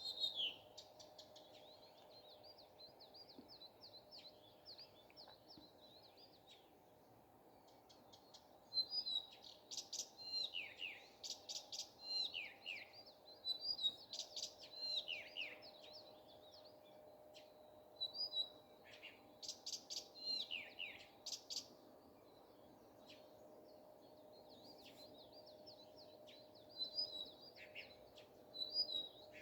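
Nightingale singing: phrases of rapid repeated notes and trills mixed with downward-sliding whistles, louder from about nine seconds in, with a few seconds of quieter song past the two-thirds mark. A faint steady hum runs beneath.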